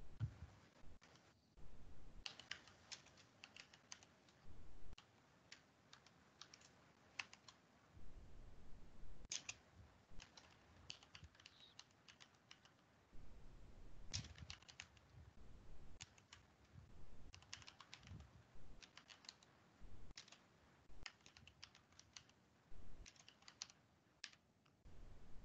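Faint computer keyboard typing: short irregular runs of keystrokes with brief pauses between them.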